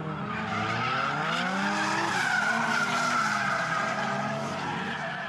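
Dodge Challenger doing donuts: the engine revs up and down under throttle while the rear tyres squeal and skid as they spin and slide. The tyre squeal is strongest in the middle.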